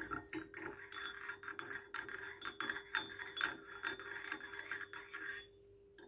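Metal teaspoon stirring honey into tea in a ceramic teacup, clinking lightly against the cup's sides several times a second, then stopping about five and a half seconds in.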